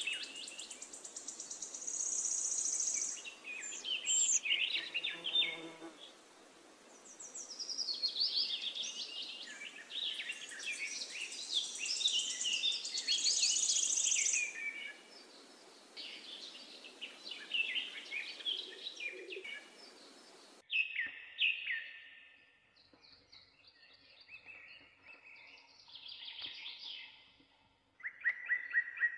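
Small birds chirping and singing in quick trills and short calls, over a steady hiss that cuts off abruptly about two-thirds of the way through.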